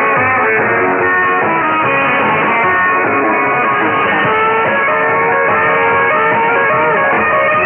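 Guitar-led music from a pirate shortwave broadcast on 6925 kHz, received in AM on a software-defined radio. It plays continuously with no treble above the narrow receiver passband.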